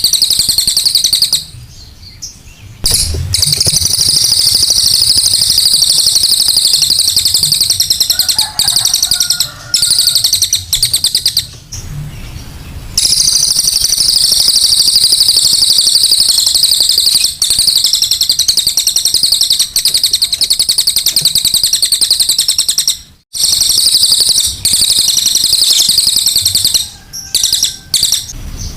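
A cililin songbird singing a loud, continuous, very rapid high-pitched chattering trill: the fast 'tembakan' song used as master material for training other birds. The song breaks off briefly a few times.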